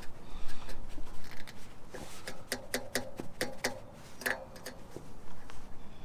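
Fingers tapping and flicking the metal fins of a roof-mounted LED light bar: a quick run of sharp metallic ticks and pings, most of them between about two and four seconds in. The pinging still sounds metallic with the rubber sound isolators in; the isolators make no difference to it.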